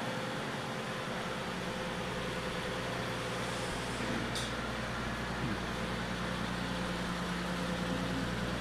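Nissan 370Z Nismo's 3.7-litre V6 idling steadily.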